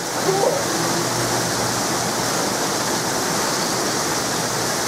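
Heavy thunderstorm rain pouring down, a steady even rushing hiss.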